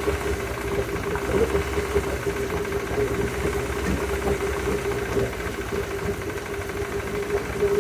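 Yamaha F100 four-stroke outboard motor idling with a fast, steady knock under a constant hum; the low pulsing weakens about halfway through. The owner is unsure whether the knock is rod knock or normal for this motor.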